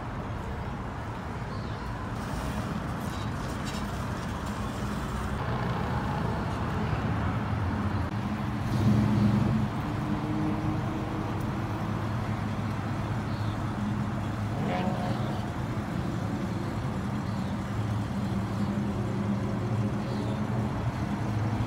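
Engine and exhaust of a 1971 Oldsmobile Cutlass 442 convertible running as the car cruises slowly past, louder for a moment about nine seconds in.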